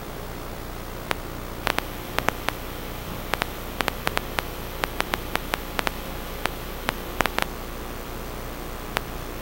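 Steady static hiss with irregular sharp clicks and crackles, clustered through the middle and sparse near the end.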